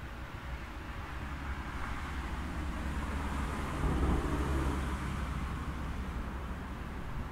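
JNR 475-series electric multiple unit pulling slowly into the station: a steady low hum under a haze of wheel and running noise that swells to a peak about four seconds in, then eases.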